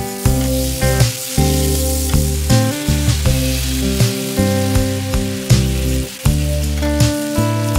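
Bone-in ribeye steak sizzling in its soy-butter glaze on a grill pan, a steady hiss under background music with a regular beat.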